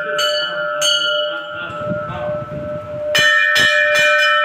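Hanging brass temple bells struck by their clappers, each strike leaving a long steady ringing tone; two strikes near the start, a lull of about two seconds, then four quick strikes near the end.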